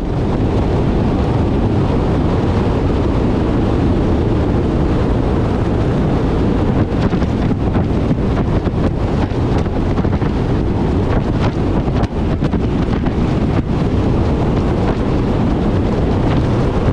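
Wind buffeting the microphone in a steady rush, with a truck's low rumble underneath; it starts and cuts off abruptly.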